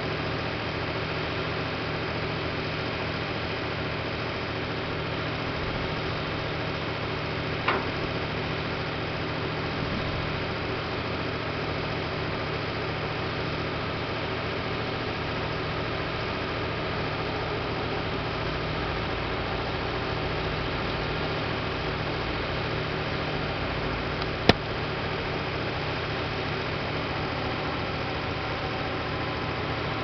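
Mercedes-Benz Actros 4144's V8 diesel running steadily while driving the hydraulics of its Putzmeister 46 m concrete pump boom as the boom moves, a constant engine hum with several steady tones. Two sharp clicks stand out, one about eight seconds in and a louder one about 24 seconds in.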